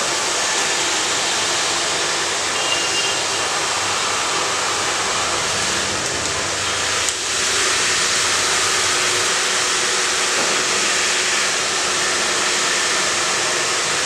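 Hand-held hair dryer blowing hot air steadily at close range onto a plastic water bottle. The sound dips briefly about seven seconds in, then runs a little louder.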